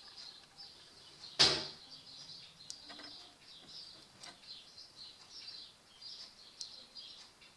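A single sharp knock about a second and a half in, followed by a few faint clicks, over faint continuous high-pitched chirping like distant birdsong.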